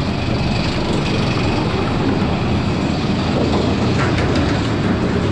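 Roller coaster train rumbling steadily along its track, with a few faint clicks near the end.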